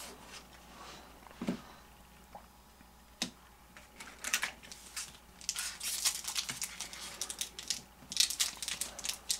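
Baseball trading cards and their pack wrapper being handled at close range: bouts of crinkling and rustling with a few light clicks and taps, busiest in the second half.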